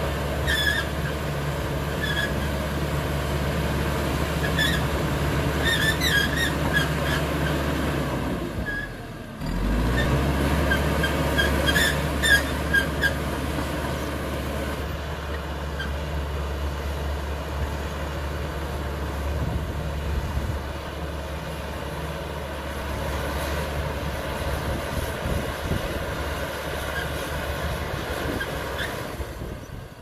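CAT D5K XL bulldozer's diesel engine running steadily under load as it pushes soil with its blade. For the first dozen seconds, short high squeals from the steel tracks come through repeatedly.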